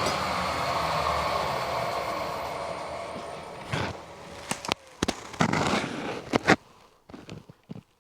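Milling machine with a carbide cutter running, its steady noise fading away over the first few seconds as it runs down. Then a string of sharp metallic clicks and knocks.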